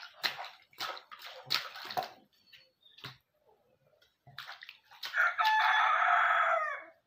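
Water splashing in a small plastic tub, several quick splashes in the first two seconds. About five seconds in, a rooster crows once, a long call that falls off at the end and is the loudest sound.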